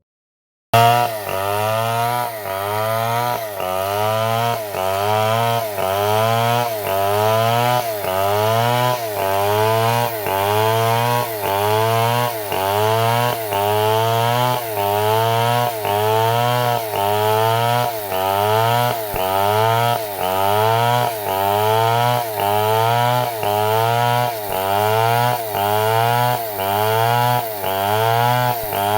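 Stihl MS 250 two-stroke chainsaw ripping wood lengthwise into boards. Its engine note climbs and falls back in an even rhythm about once a second as it cuts under load, starting about a second in.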